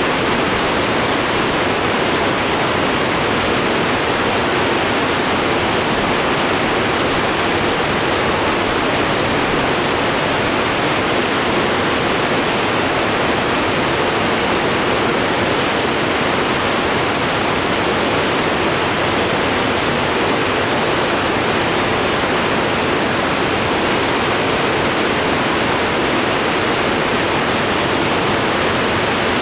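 Loud, steady rush of creek water tumbling over a dam and through whitewater rapids. The creek is running fast and high after rain.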